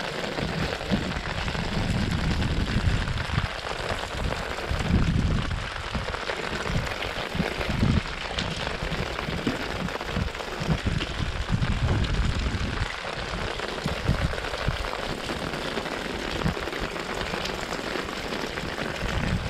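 Heavy downpour of rain, with a steady hiss of drops, overlaid by irregular low thumps and rumbles.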